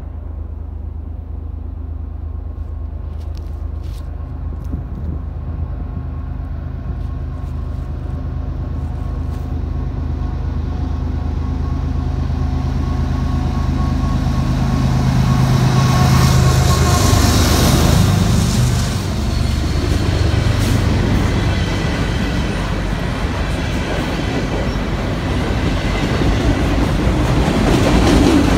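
CN diesel freight train approaching and passing: a steady low locomotive engine drone that grows louder, then the rising rush of wheels on rail as the locomotives go by about halfway through, and the freight cars rolling past.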